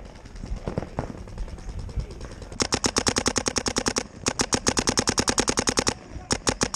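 Paintball marker firing close by in three rapid bursts of about a dozen shots a second, the first two each lasting over a second and the last short, after a few scattered single pops.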